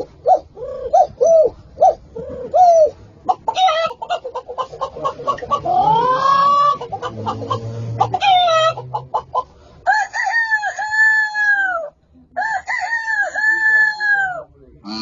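A man imitating chickens with his voice: a run of quick clucks, then clicking and a rising squawk, and two long rooster crows near the end.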